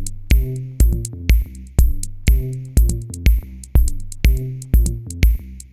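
Electronic background music with a steady drum-machine beat, a kick drum about twice a second over a bass line and hi-hats.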